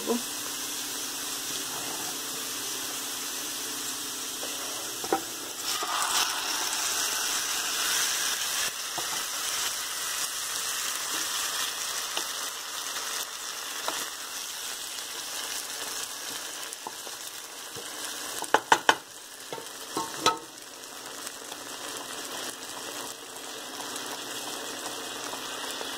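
Oil sizzling in a frying pan with fried onion, garlic and dried chillies, growing louder about six seconds in as the boiled pui shaak (Malabar spinach), taro and masoor dal mixture goes in and cooks, sizzling and bubbling. A few knocks against the pan about three-quarters of the way through.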